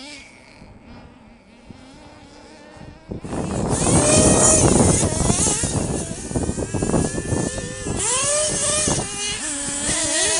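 Small nitro engines of radio-controlled off-road trucks revving up and down. The sound is faint for the first three seconds, then suddenly loud and close, with many rising and falling whines.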